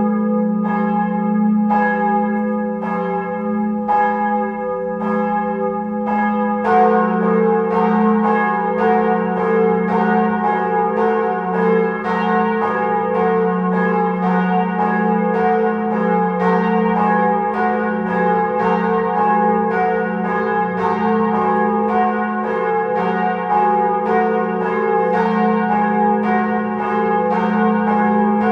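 Church bells ringing, a steady run of strokes over a lasting hum. About six or seven seconds in, more bells join and the strokes come faster, about two a second.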